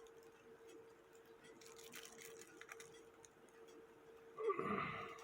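Faint light clicks of a small metal pin and clock movement parts being handled, over a faint steady hum, with a brief louder sound near the end.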